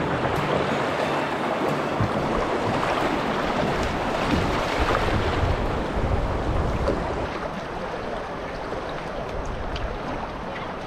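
Rushing water of river rapids around a canoe, a steady rush that eases slightly after about seven seconds.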